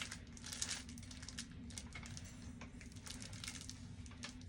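Light scattered clicks and rustling of makeup brushes and plastic packaging being handled, over a faint steady low hum.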